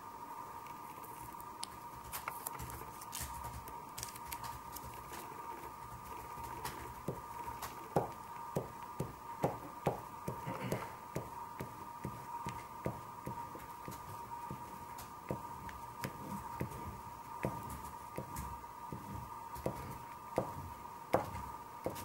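Oil pastel stick scraping and tapping on paper in short, irregular strokes, sparse at first and coming several a second from about eight seconds in. A steady high-pitched hum runs underneath.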